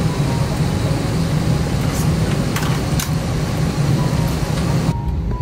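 Steady low rumble and hiss of an Airbus A320-200 cabin with the engines running, with a few faint clicks.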